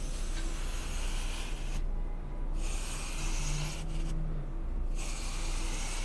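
Craft knife scoring glitter-coated green floral foam: three scratchy, crunchy cutting strokes, each about a second long, with short pauses between them.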